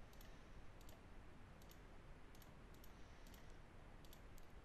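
Faint, irregular computer clicks, about ten, as keys are entered one by one on a TI-84 Plus C calculator emulator, over a low steady hiss.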